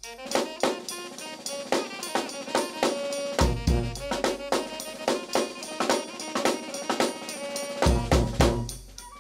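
New Orleans brass band playing: snare and bass drum drive a busy beat under held brass and reed notes, with deep low bass hits swelling twice. The band comes back in right at the start after a brief drop.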